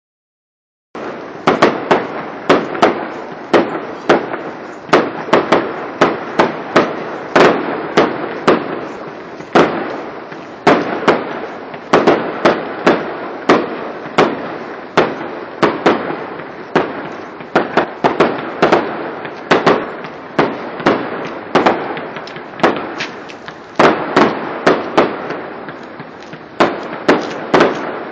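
Fireworks display: aerial shells bursting in quick succession, sharp bangs about two a second over a continuous rumble, starting abruptly about a second in.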